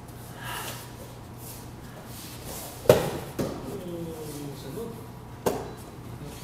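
A body hitting the foam floor mats as an aikido partner is taken down and pinned: one sharp, loud thud about three seconds in, a smaller thump just after, and another slap on the mat near the end.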